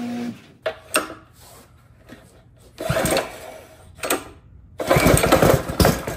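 Predator 224cc single-cylinder four-stroke engine being pull-started with the choke on: repeated recoil-cord pulls, each a short burst of cranking, the longest and loudest from about five seconds in.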